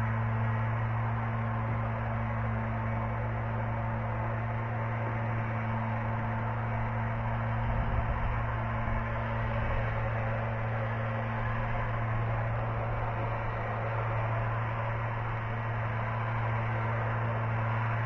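Steady low electrical hum with a weaker higher tone and a background hiss. A brief low rumble comes about eight seconds in.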